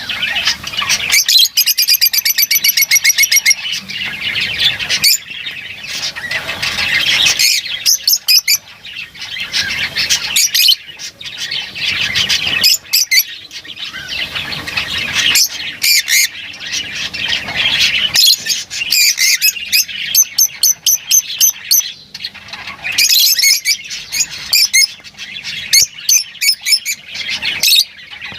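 Lovebirds chattering and squawking: a continuous jumble of shrill chirps and screechy calls, broken by quick runs of rapidly repeated notes.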